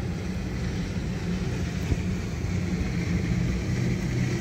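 A steady low engine drone, like a motor running at a constant speed, with a single sharp click about two seconds in.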